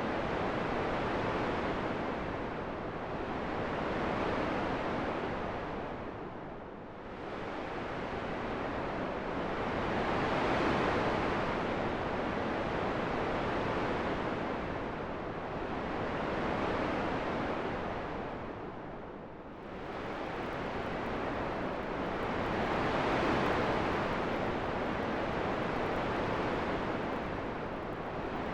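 Wind blowing as a steady rush that swells and eases in slow gusts every few seconds, with deeper lulls about seven seconds in and again near twenty seconds.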